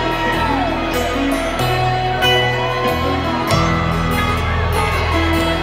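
Folk-rock band playing live in an arena, an instrumental passage with no singing: upright bass holding low notes under piano and a steady strummed rhythm, heard through a phone microphone in the crowd.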